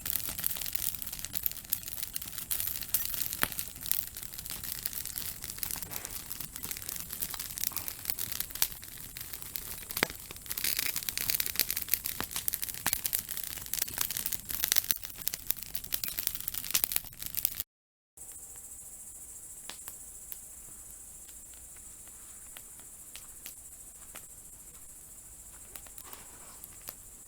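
Aspen-log campfire crackling and popping densely as the wood throws sparks and embers. After a cut about two-thirds of the way in, a quieter stretch follows: a steady high-pitched tone with only a few faint pops.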